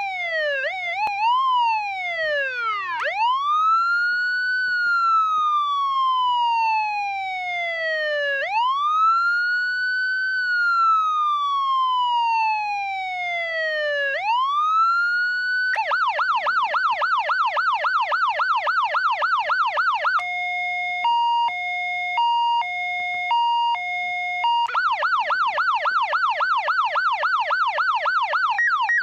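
Federal Signal Interceptor electronic siren switched through its tones. It opens with a few quick short rises and falls, then two slow wail cycles that climb and fall over several seconds each. About sixteen seconds in it changes to a rapid yelp, then a hi-lo that alternates between two tones, then the yelp again.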